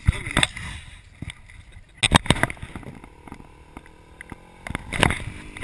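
Camera handling noise: irregular knocks, bumps and scuffs close to the microphone, loudest about two seconds in and again about five seconds in.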